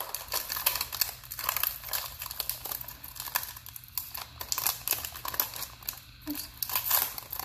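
Foil wrapper of a Pokémon trading-card booster pack crinkling and crackling in the hands as it is pulled open.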